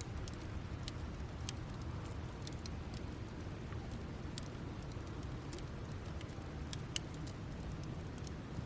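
Wood campfire burning down to embers, with sparse crackles and sharp pops over a low steady rumble; one sharper pop about seven seconds in.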